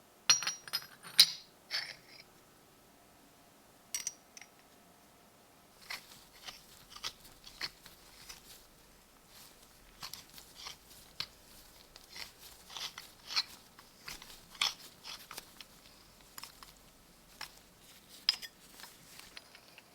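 Small metal parts of a time-fuse mechanism being handled. A few sharp clicks come in the first two seconds, then from about six seconds on a run of light clicks and scrapes.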